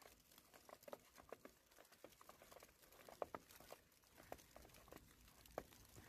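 Falling snow pattering faintly, a scatter of small irregular ticks over a soft hiss.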